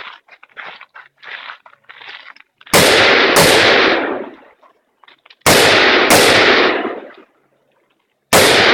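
Rifle shots fired in quick pairs about two-thirds of a second apart: two pairs, then another shot near the end, each shot echoing away over about a second. Fainter short knocks and clicks come before the first pair.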